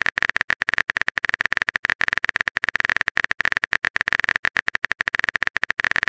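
Typing sound effect of a phone texting app: a rapid, uneven run of keyboard-tap clicks, about a dozen a second, as a message is typed out.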